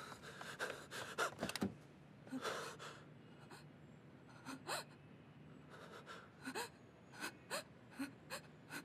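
A person gasping and panting in shock: a series of quiet, uneven breaths, some catching with a little voice in them.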